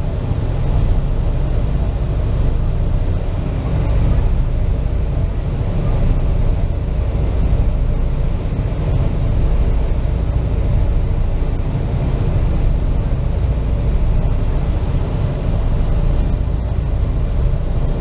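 Ferry's engines running steadily, heard on board as an even low rumble with a faint hum above it.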